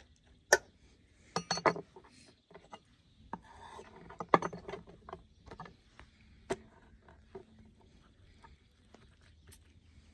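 Cabbage leaves being handled and laid on a wooden cutting board: light rustling with a handful of sharp taps and knocks, the loudest about half a second in and again about four seconds in.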